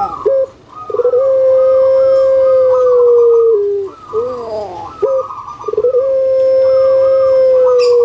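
Puter pelung (Barbary dove, Streptopelia risoria) cooing loudly: twice, a few short quick notes and then a long drawn-out coo held on one steady pitch for about two and a half seconds.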